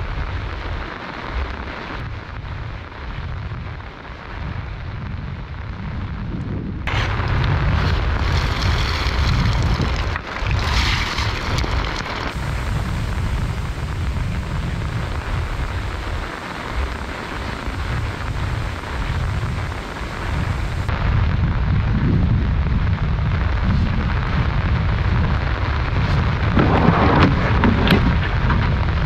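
Gusty wind rumbling and buffeting the microphone over a steady hiss of rain and wind, with the background changing abruptly a few times.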